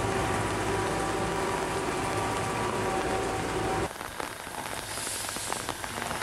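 SBB Ae 4/7 electric locomotive standing with a steady hum of several held tones. About four seconds in, the sound cuts to a quieter patter of irregular small clicks.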